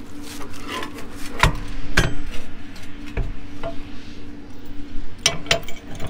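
Steel tongue and hitch of a header trailer being handled, giving about five sharp metal clanks and clinks, the loudest two about a second and a half and two seconds in, and a quick pair near the end, over a low steady hum.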